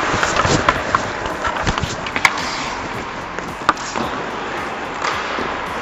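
Ice hockey play: skates scraping across the ice, with sharp clacks of sticks and puck scattered through.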